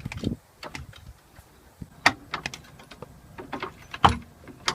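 Irregular clanks and knocks from a floor jack being worked under a car to lift it, with the loudest knocks about two seconds in and about four seconds in.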